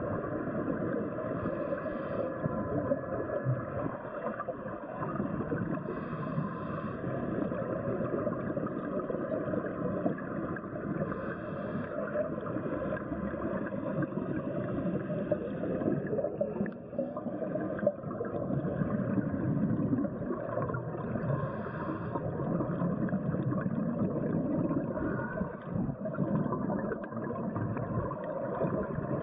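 Steady underwater noise from a scuba dive: a continuous rushing drone with gurgling, dipping briefly about halfway through.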